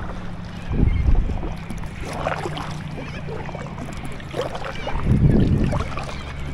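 Water and wind noise around a kayak under way, over a steady low hum, with louder swishes about a second in and again near the end.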